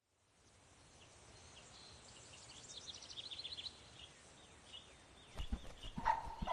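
Forest ambience fading in, with small birds chirping: a quick run of high chirps about three seconds in, and a few low thumps near the end.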